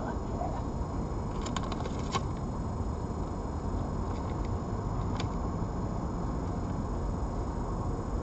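Steady low rumbling background noise with a few faint clicks, a small cluster about one and a half to two seconds in and one more about five seconds in.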